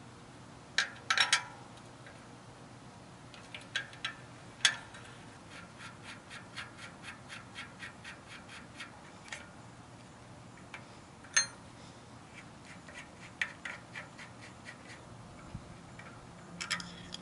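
Small metal clicks and clinks of a bicycle rear hub being taken apart by hand, its axle, cone and locknut loosened until the loose ball bearings lie open. In the middle there is an even run of light ticks, about three a second, and a little later a single clink that rings briefly like struck steel.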